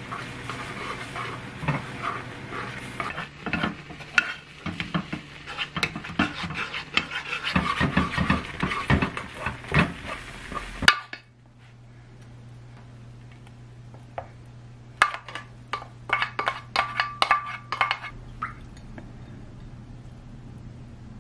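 A wooden spatula stirring and scraping thick oatmeal porridge as it bubbles in a small pan on a gas stove. About halfway through the sound cuts off suddenly to a quieter stretch with a low hum, then a few seconds of light clicks and taps.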